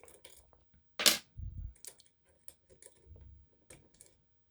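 Lock picks and a tension tool clicking and scraping against the pins of an Adamant spinning-key lock: scattered small metallic clicks, with one louder clack about a second in followed by a dull knock.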